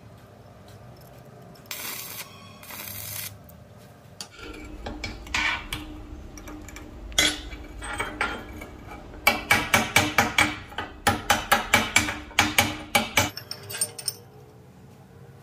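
Stick-welding arc crackling in two short bursts, then a chipping hammer knocking slag off the fresh welds on steel rebar: a run of sharp metallic taps, about four a second, in the second half, over a steady low hum.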